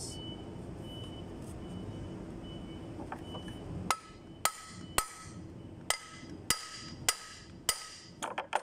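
Steel hammer blows on an Allen key in a tight taper-lock bushing bolt of a fan pulley, knocking the stuck bolt loose. About eight sharp metallic strikes, one roughly every half second, start about four seconds in, each ringing briefly, with a quick pair near the end.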